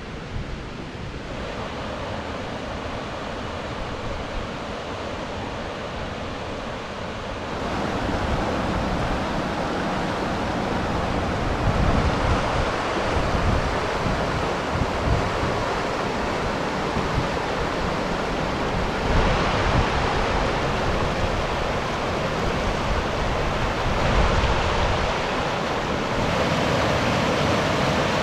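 Wind buffeting the microphone: a steady rush with irregular low rumbling gusts, growing louder about a second in and again about seven seconds in.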